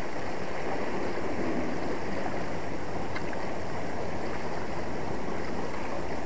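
Sea water washing steadily against shoreline rocks.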